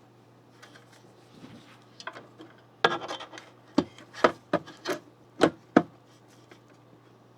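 PC hardware being handled during assembly: soft rubbing and scraping, then a run of about seven sharp clicks and knocks over roughly three seconds, from about three seconds in.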